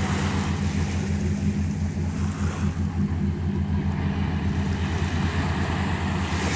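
A boat engine runs with a steady, pulsing low rumble, while small waves wash onto the beach.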